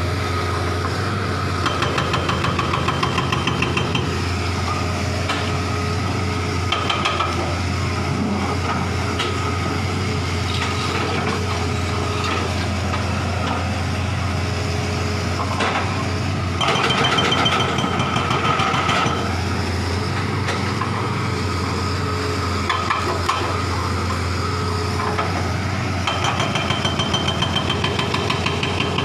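Hitachi tracked hydraulic excavator's diesel engine running steadily, with a low hum and a stretch of faster, louder pulsing a little more than halfway through.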